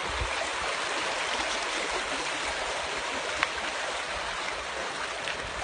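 Shallow stream water rushing over rocks and gravel, a steady even rush, with a single sharp click about three and a half seconds in.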